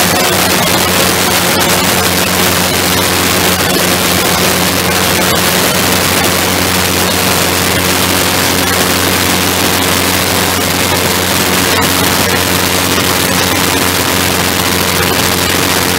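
Engine of the MudSkipper, a small wing-in-ground-effect craft, running steadily at cruise as it flies low over the water. A steady hum sits under a heavy rush of wind across the microphone.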